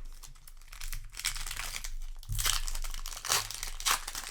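Foil wrapper of a Magic: The Gathering booster pack crinkling and crackling as it is handled, with louder crinkles near the end.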